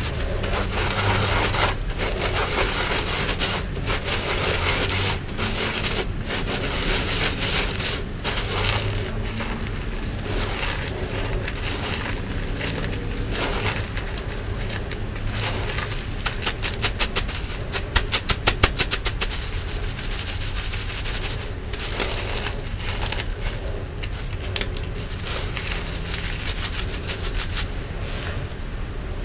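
Crumbly yellow powder being rubbed by gloved fingers through a metal mesh sieve: a grainy rubbing and scraping in repeated strokes, with crumbs crunching against the mesh. About two-thirds of the way through there is a short run of quick, sharp taps.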